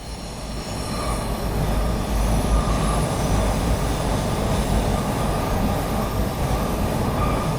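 Toronto subway train heard from on board while riding, a steady heavy rumble with high-pitched steel wheels squealing on the rails above it. It builds up over the first two seconds, then holds steady.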